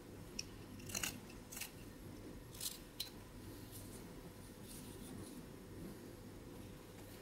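Small carving knife slicing into a piece of koa wood: several short cuts, most of them in the first three seconds, over a faint steady hum.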